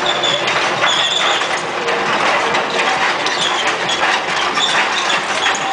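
CAT 320C hydraulic excavator working: its diesel engine runs under a busy clatter of short metallic knocks and clicks as the boom and bucket move.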